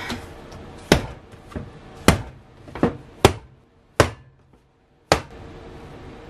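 Bread dough being slapped and thrown down hard on a wooden cutting board: about six sharp smacks, irregularly spaced, roughly one a second.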